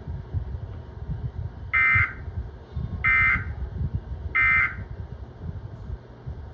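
Emergency Alert System end-of-message data signal: three short buzzing digital bursts, about a second apart, the EAS/SAME code that marks the end of the alert.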